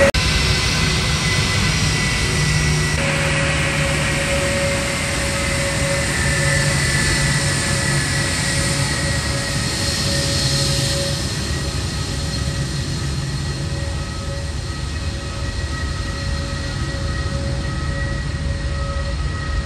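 Pratt & Whitney PW1127G geared turbofans of a taxiing Airbus A320 running at low power: a steady jet rush with several held whining tones over it.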